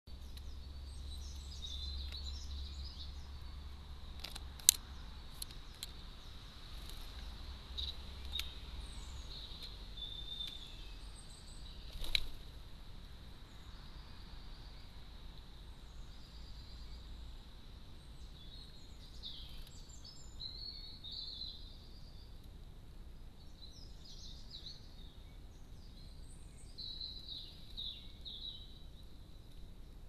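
Garden songbirds chirping and singing faintly over a low outdoor rumble, the calls thicker in the second half, with a few sharp clicks, the loudest about five and twelve seconds in.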